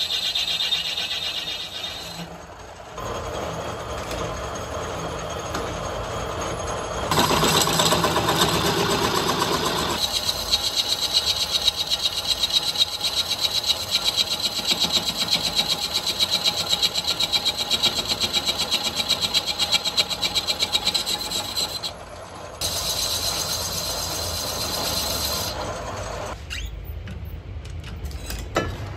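Metal-turning lathe running and cutting metal meat-mincer parts, with a high steady squeal from the cutting tool. The sound changes abruptly several times, and through the middle stretch the lathe's noise pulses rapidly and regularly.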